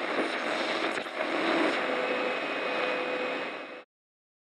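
Logo sting sound effect: a steady rushing noise with a faint held tone in it, which cuts off abruptly near the end.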